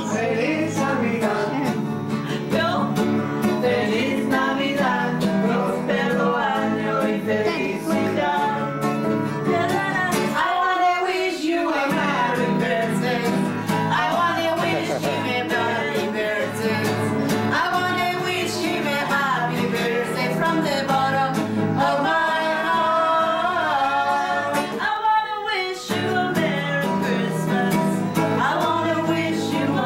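People singing a song together to a strummed acoustic guitar, with the accompaniment dropping out briefly twice.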